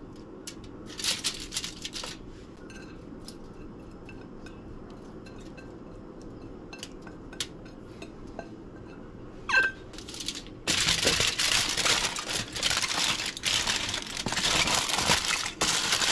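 Light clinks and scrapes of tongs and a spoon against a ceramic plate. About eleven seconds in, aluminium foil starts crinkling loudly and keeps on as it is folded and crimped around the fish.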